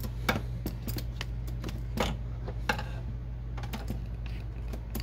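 Phillips screwdriver turning out the small screws that hold the printhead in its carriage: a run of irregular light clicks and ticks, a few louder than the rest.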